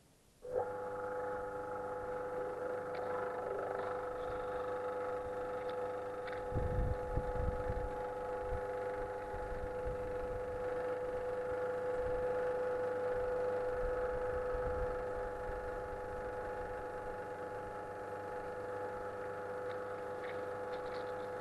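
A pump starts about half a second in and runs steadily with a constant hum, pressurising the water-filled test chamber. A few low thumps come about six to eight seconds in.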